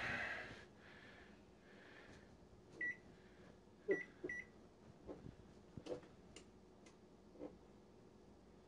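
Electric range's control-panel beeps as its buttons are pressed to set a 12-minute timer: three short high beeps, one about three seconds in and two close together about a second later, followed by a few faint clicks.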